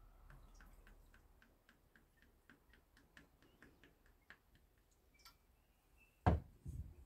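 Light, even ticking, about four ticks a second, while water is added from a clay jug to a bowl of flour. Near the end the clay jug is set down on a wooden board with two solid knocks, the louder one first.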